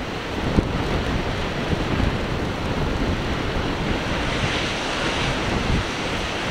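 Wind buffeting the microphone: a steady rushing noise with irregular rumbling gusts.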